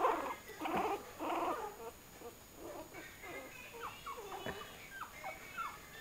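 Two-week-old pug puppy squeaking and whimpering in many short, thin, high-pitched calls that rise and fall, the cooing sound of very young puppies.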